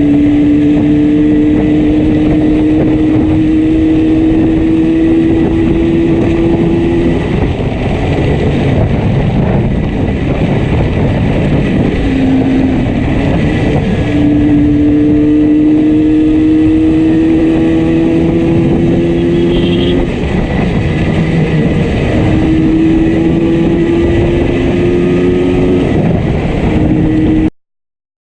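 Yamaha RD350 two-stroke twin engine under way, its pitch climbing steadily for several seconds, dropping back and climbing again three times as it pulls through the gears, while running with one cylinder misfiring heavily. The sound cuts off abruptly near the end.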